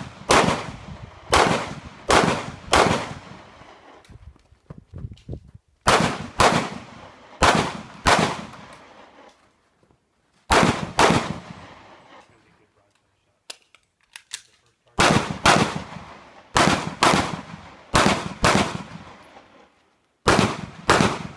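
Pistol shots fired mostly in quick pairs about half a second apart, grouped into clusters of two to six shots with pauses of a few seconds between them, each a sharp crack with a brief echo. The pairs are double taps, two hits per paper target as the course of fire requires.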